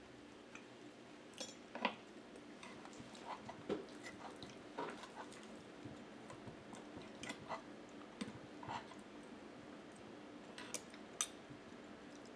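Eating sounds: quiet chewing of vegetable pancake, with scattered light clicks and scrapes of a metal spoon and fork against a wooden plate. A faint steady hum runs underneath.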